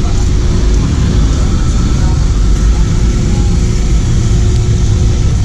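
Busy street traffic: vehicle engines running close by over a steady low rumble.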